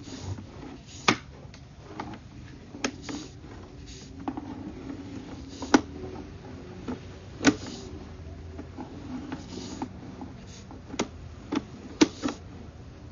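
Sewer inspection camera on its push cable being pulled back through the pipe: about a dozen irregular sharp clicks and knocks over a low steady background noise.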